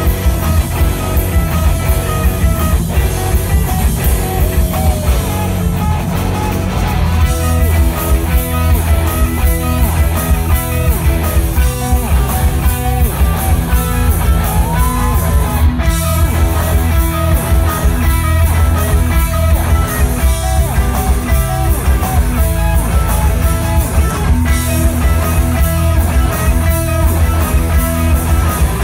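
Post-hardcore band playing live: two electric guitars, bass guitar and drum kit in a dense, continuous instrumental passage, heard from within the crowd with a heavy low end.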